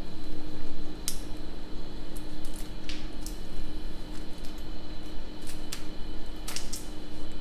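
Handling noise of a motorcycle gauge's wiring harness being fed into the headlight shell: a few clicks of cables and connectors over a steady low hum.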